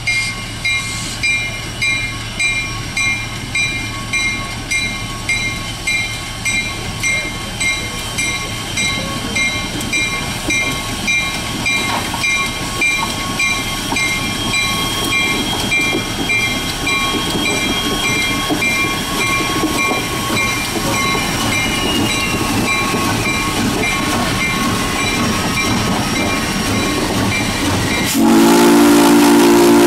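A railroad crossing bell dings steadily, a little under twice a second, while the QJ steam locomotive rolls past close by, its running gear and exhaust growing louder. Near the end the locomotive's chime steam whistle starts suddenly and loudly, drowning out the bell.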